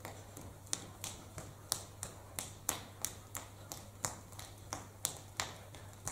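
Sharp taps in an even rhythm, about three a second, over a steady low hum.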